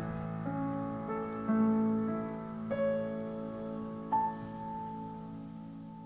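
Soft piano music: held chords, with new notes struck now and then, each ringing on, slowly getting quieter.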